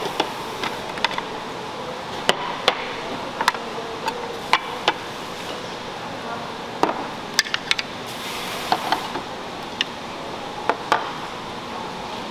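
Plates and small bowls being set down one after another on a table: irregular sharp clinks and knocks of dishes, sometimes two close together, over a steady murmur of room noise.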